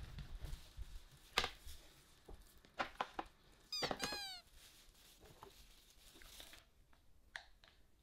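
A cat giving a short meow about four seconds in, a quick run of falling pitched calls, amid scattered small clicks and knocks.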